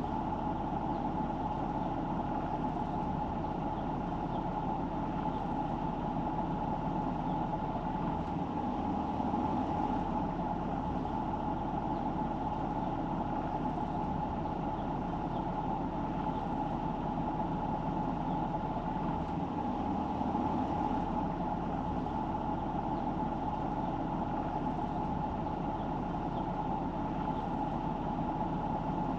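Steady engine and tyre noise of a car being driven, even throughout with no sudden events.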